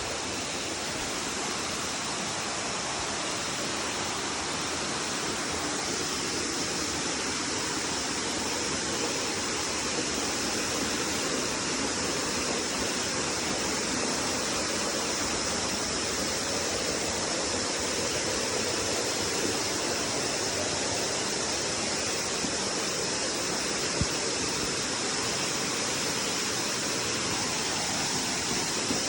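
Waterfall: a steady, even rush of falling water, with one short tap near the end.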